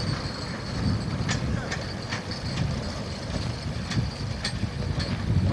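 Narrow-gauge steam locomotive moving slowly with its train: a low rumble with scattered knocks and clanks.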